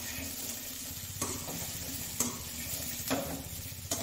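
Potato and cauliflower pieces sizzling in oil in a metal kadhai while being stirred with a metal spatula, which scrapes and knocks against the pan about four times, roughly once a second.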